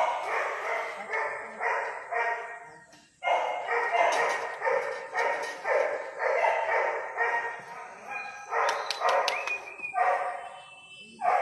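Puppy barking over and over, nearly two barks a second, with a short break about three seconds in.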